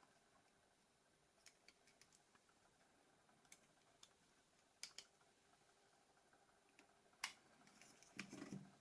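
Faint, sparse clicks and taps of a mobile phone's small plastic parts being handled and fitted together during reassembly, the sharpest click about seven seconds in, with a short scraping rustle near the end.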